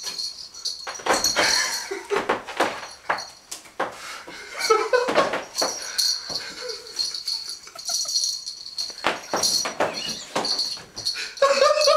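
A man's breathy giggling comes in bursts. Over it, a jingling cat toy gives short bursts of high ringing as it is swung.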